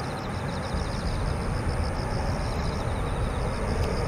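Distant jet-engine rumble of an Airbus A321-200 airliner rolling out on the runway after touchdown, a steady low rumble that grows slightly louder about a second in. High, rapid chirping runs over it.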